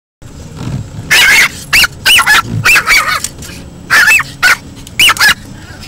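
A Pomeranian barking at the moving windshield wipers: a rapid string of short, high-pitched yaps, about eight in all, over the steady hum of the car.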